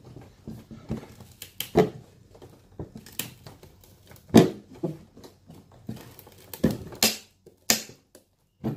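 A hand tool knocking and scraping against the lid of a plywood shipping crate as it is worked at, with irregular sharp knocks and cracks. The loudest knock comes about four and a half seconds in, and several more follow near the end.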